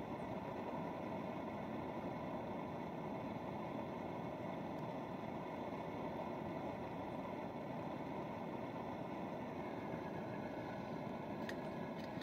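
Portable gas camping stove burner running with a steady roar under a steaming pot, with a couple of light clicks near the end as the pot lid is handled.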